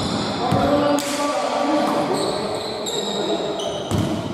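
Basketball game sounds on an indoor court: the ball knocks on the floor about a second in and again near the end, with sneakers squeaking in between and players' voices echoing in the hall.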